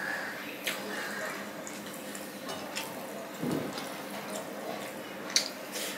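Close-up hand-eating sounds: wet chewing and mouth smacks, with fingers squishing rice and curry on a plate. There are a few sharp wet clicks, the loudest near the end.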